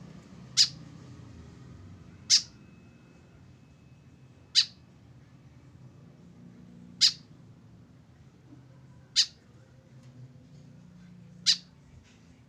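White-breasted woodswallow giving a short, sharp, high call six times, evenly spaced about two seconds apart, with a faint low hum underneath.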